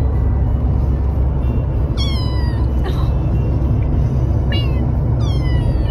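Ragdoll kitten meowing four times, short high cries that fall in pitch, over the steady low rumble of the car on the road.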